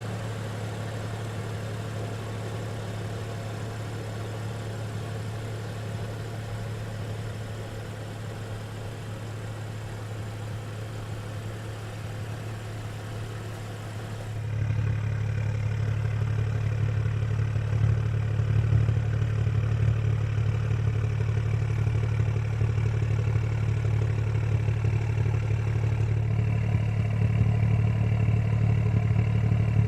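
BMW M2's turbocharged straight-six, fitted with a valved Fi aftermarket exhaust, idling with a steady deep exhaust hum. About halfway through it gets noticeably louder and fuller.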